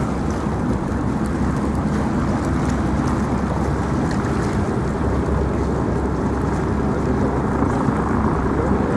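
Steady low outdoor rumble of wind buffeting the microphone, mixed with the wash of water.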